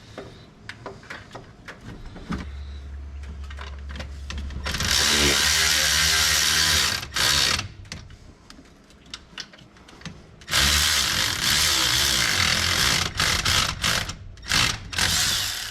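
Power drill running in two long bursts with short on-off pulses between them, over a steady low hum.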